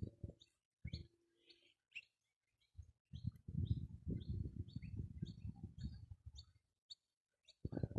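Small birds chirping, short high chirps repeating throughout, with a low rumble through the middle.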